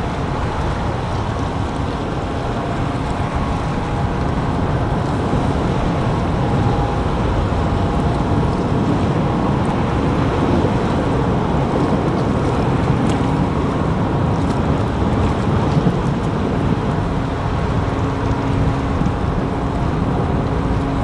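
Engines and propellers of a 1989-built Ro-Ro passenger ferry working as it manoeuvres to berth, churning the water: a steady low rumble with faint steady tones running over it.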